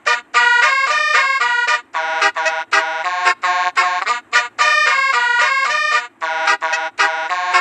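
Basuri telolet multi-note bus horn, a 36-note type, playing a fast melody: short horn notes in quick succession, often several sounding together as chords, broken by brief pauses.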